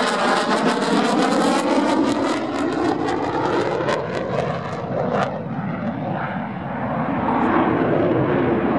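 Saab JAS 39 Gripen fighter's Volvo RM12 afterburning turbofan in a display pass: loud, steady jet noise with sharp crackles over the first half. After about five seconds the crackle and the high end fade, leaving a lower rumble.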